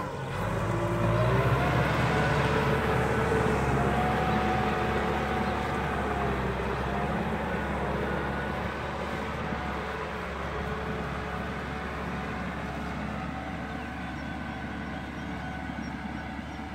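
Diesel farm tractor engine running steadily under load as it tills a wet rice paddy, its pitch wavering slightly. The sound fades gradually as the tractor moves away.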